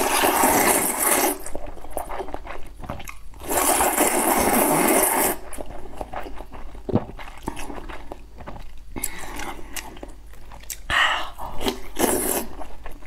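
Person slurping luosifen rice noodles from a spicy broth in long noisy pulls: one right at the start, another a few seconds in, and more near the end, with chewing and small crunching clicks in between.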